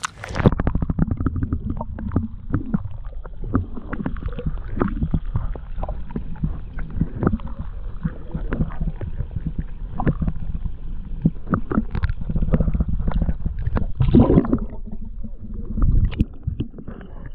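Muffled sound of a camera held underwater in shallow water: a dull low rumble and sloshing, with frequent scattered clicks and knocks. It gets louder around two-thirds of the way through and again near the end.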